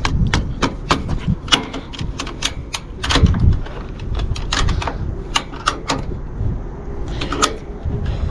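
Retractable ratchet strap being cranked tight: an irregular run of sharp ratchet clicks with a few dull knocks.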